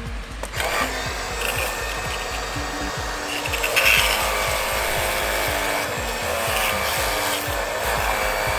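Portable high-pressure washer running and spraying a steady, hissing jet of water, washing grime off a car's A/C blower motor; it starts about half a second in and surges briefly about four seconds in.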